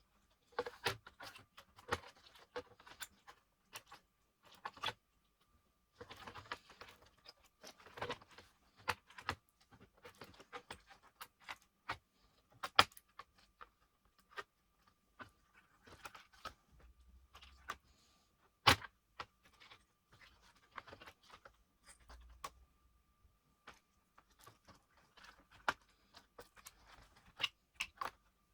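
Scattered clicks, taps and light metallic clinks of hands working on an opened laptop, handling its small parts and screws, with two sharper clicks, one about 13 seconds in and one about 19 seconds in.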